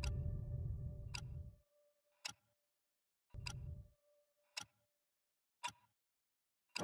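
Faint, slow, even ticking like a clock, about one tick a second, while the last low notes of the song die away in the first second and a half.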